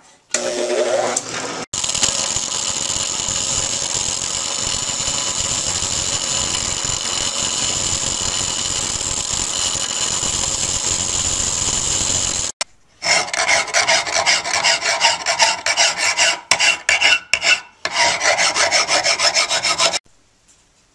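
Bench grinder wheel grinding a soft, unhardened steel knife blank to shape: a steady hissing grind, then after a brief break, shorter on-and-off passes of the steel against the wheel that stop shortly before the end.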